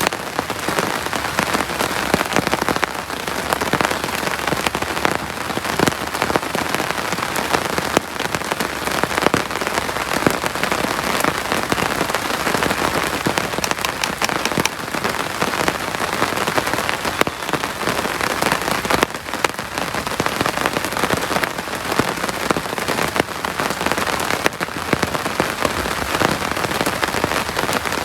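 Heavy rain falling steadily, a dense patter of many drops.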